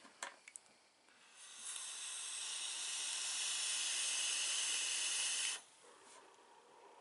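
Electronic cigarette box mod firing during a long draw: a steady hiss of air and vapour pulled through the atomizer for about four seconds, cutting off abruptly.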